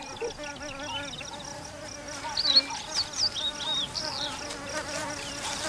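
Flying insects buzzing, a steady hum that wavers slightly in pitch. Short high chirps break in about two to four seconds in.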